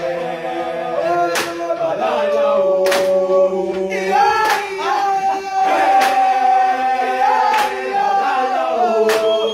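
A group of boys' voices singing a gwijo, the Xhosa chant-song, in harmony on long held notes. A sharp clap marks the beat about every second and a half.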